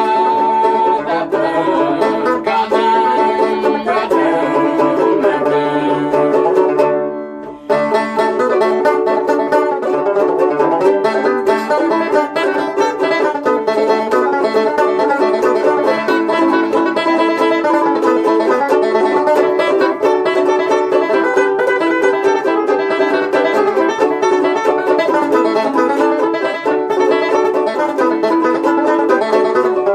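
Instrumental music played on plucked string instruments: quick picked notes, with a brief break about seven seconds in before the playing resumes.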